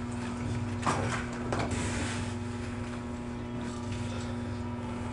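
Clothes rustling as trousers are pulled on and jeans are handled, with two short rustling bursts about a second in, over a steady hum.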